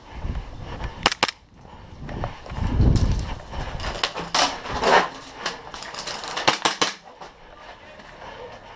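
Airsoft guns firing: scattered sharp pops, with a quick run of shots between about six and seven seconds in. Low rumbling on the microphone comes near the start and again around three seconds in.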